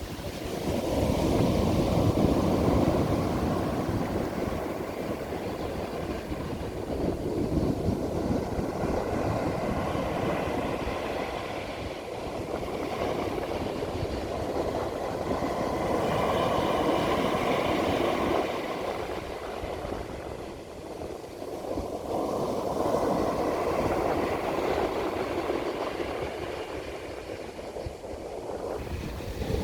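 Ocean waves breaking and washing up a beach: a rushing noise that swells and fades every several seconds.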